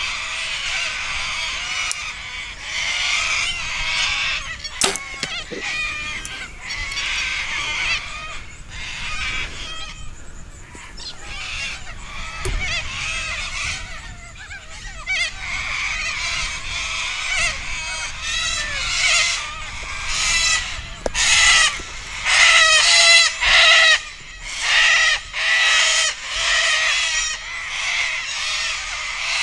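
A flock of cockatoos screeching, many harsh overlapping calls, growing louder and more frantic in the second half.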